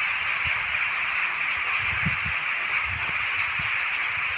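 A huge flock of rooks calling all at once, a dense, unbroken din of cawing, with a few short low rumbles underneath.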